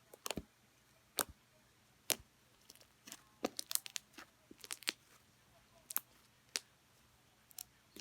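Slime being squeezed and worked by hand, giving irregular sharp pops and crackles, thickest in a quick run around the middle.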